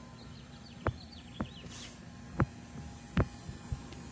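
Five sharp thumps at uneven gaps of about half a second to a second, over a faint steady hum. A few short high bird chirps come in the first second or so.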